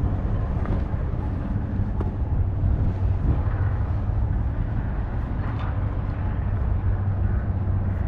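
Steady low engine hum, unchanging throughout.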